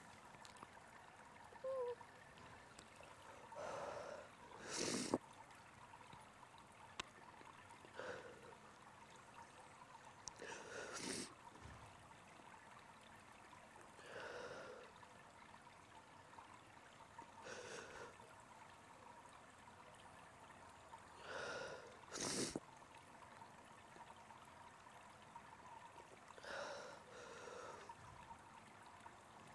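A woman crying quietly: faint sniffles and shaky breaths every few seconds, a few sharper sniffs among them.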